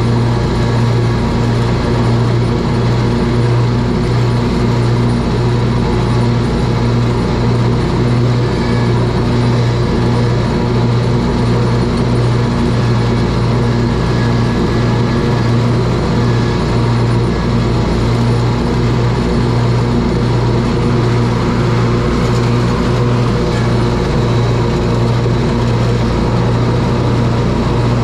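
Scag Tiger Cat zero-turn mower running steadily while mowing, its engine and cutting deck giving a loud, constant hum with no change in pitch.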